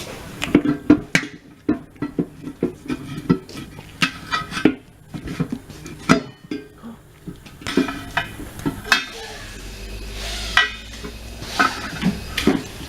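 Irregular metallic clanks and knocks from levering a tire and its run-flat insert off the wheel on a tire-changing machine, with a low steady hum joining about two thirds of the way in.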